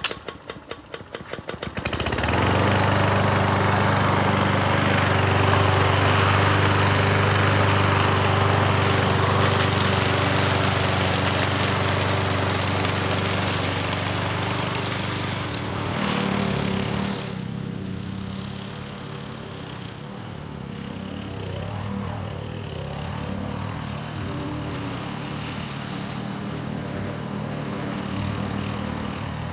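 Powersmart 21-inch push mower's 144cc four-stroke engine being pull-started: a quick run of cranking strokes, then it catches about two seconds in and runs steadily. It grows quieter about halfway through as the running mower is pushed away across the lawn.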